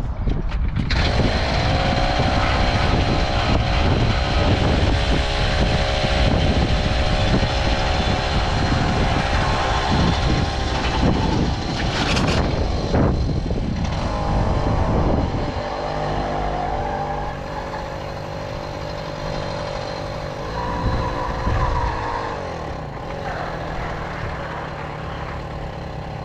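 Tomos Silver Bullet moped's small two-stroke engine running under way, with wind rushing over the microphone. About halfway through the engine eases off and settles lower and quieter, then briefly revs up and drops back a few seconds before the end.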